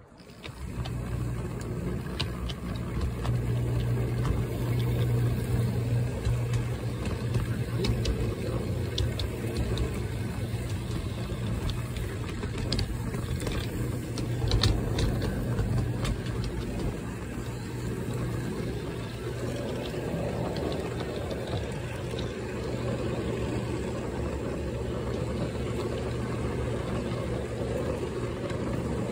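Garden-railway model diesel locomotive running along the track, its electric drive motors and gears humming steadily with the wheels rolling on the rails, picked up close from a phone riding on the locomotive's roof. The hum swells as the train gets moving at the start, and there are occasional light clicks.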